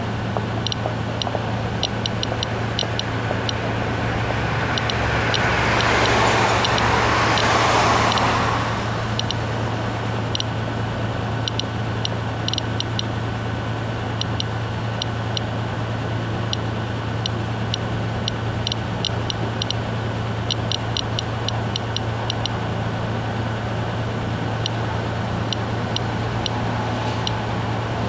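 Inspector+ Geiger counter clicking irregularly, several sharp clicks a second, each one a detected radiation count as it measures the ground surface at about 0.4–0.5 μSv/h. A passing vehicle swells up about five seconds in and fades by nine, over a steady low hum.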